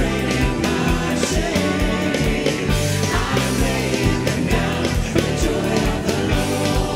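Live contemporary worship band playing a rock-style song with a steady drum beat, bass and guitar, with singing.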